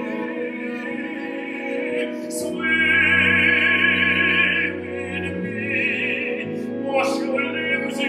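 Operatic singing with wide vibrato over a small chamber ensemble of violin, cello, flute and clarinet, with low notes held under the voice. The voice is loudest in a sustained phrase from about two and a half seconds in, and a new phrase begins about seven seconds in.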